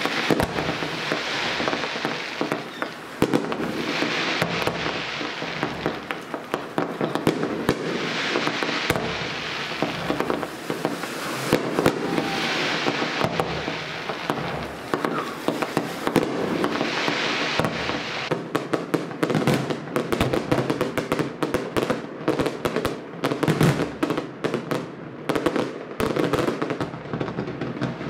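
Fireworks display: a steady crackle of many small bangs, with swells of hiss from sparking fountains and bursting shells every few seconds. About two-thirds of the way in it turns into a dense, rapid run of sharp cracks and bangs.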